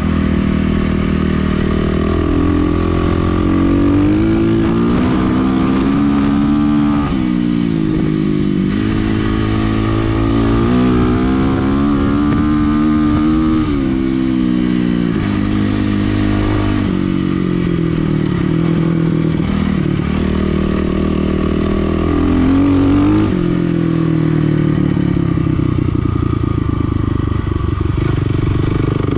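Kawasaki KLX300R dirt bike's single-cylinder four-stroke engine being ridden, its pitch rising and falling again and again as the throttle is opened and closed and the rider shifts.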